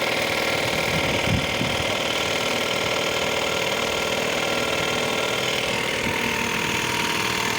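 A motor running steadily at an even pitch, with a couple of short knocks about a second in.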